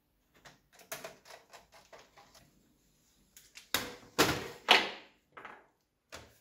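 Plastic laptop handled on a desk. First come a few light clicks and taps, then louder knocks and clatter from about four seconds in as the laptop is turned over and its lid opened and shut to test the repaired hinges, with one more knock near the end.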